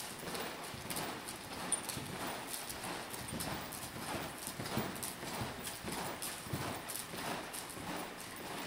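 Hoofbeats of a horse loping, a three-beat canter, on dirt arena footing: a steady run of repeated hoof strikes.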